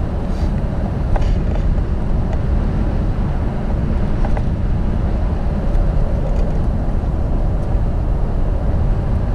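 Steady road and engine noise heard inside the cabin of a moving vehicle, a low rumble with no change in pace.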